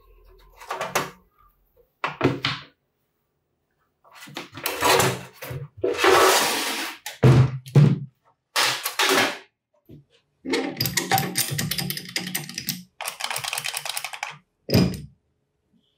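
Handling of an old Makita HM0811 electric demolition hammer and its rusted steel case: a string of separate clunks and scrapes as the heavy hammer and its cord are lifted out and set down on a wooden bench. A longer rattling scrape comes about two thirds of the way through.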